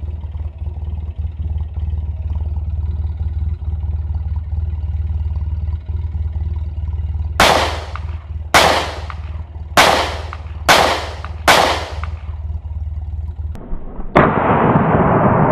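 Five pistol shots, about a second apart, over a steady low hum. Near the end a steady hiss takes over.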